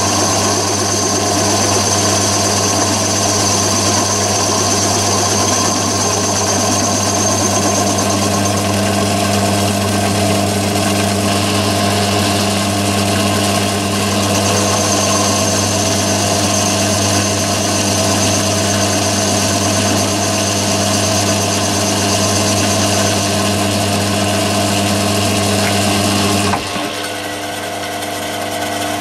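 Myford ML7 lathe spindle running at 500 rpm, turning a 50mm boring head whose carbide-insert boring bar takes a 40-thou cut in a mild steel bore: a steady machine hum with cutting noise and a high whine that comes and goes. About 26 seconds in the sound changes abruptly and drops a little in level.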